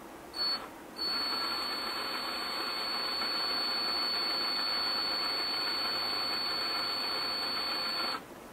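Hand-held electric drill with a flat-ended spot-cutter bit drilling out the rivet that holds a die-cast model car's bonnet to its dash. A brief blip about half a second in, then the drill runs steadily with a high whine for about seven seconds and stops suddenly.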